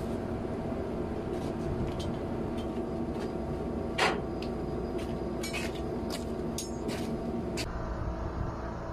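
Steady hum of a ship's deck machinery, with a scattering of sharp metal clicks and clinks from safety-harness hooks and lanyard fittings being handled. The loudest clink comes about four seconds in, and a quick run of them follows.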